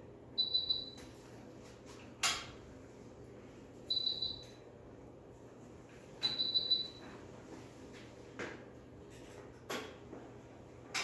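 Short, high electronic chirps, each a quick warble of pulses, sounding three times about every two and a half to three seconds, typical of an anesthesia monitor. A few sharp clicks and taps from handling fall between them, the loudest about two seconds in.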